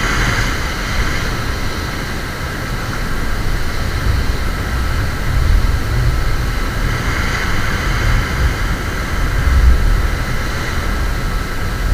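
Ocean surf washing on the beach, the hiss of the waves swelling near the start and again in the second half, over a heavy low rumble of wind on the microphone.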